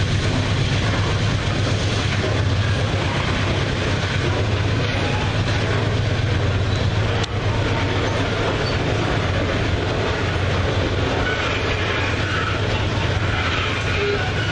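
Loaded iron-ore wagons rolling past: a steady rumble and clatter of their steel wheels on the rails.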